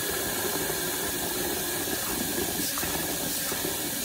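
Hot water running steadily from a kitchen faucet into a glass bowl in a stainless-steel sink, a continuous hiss of splashing water.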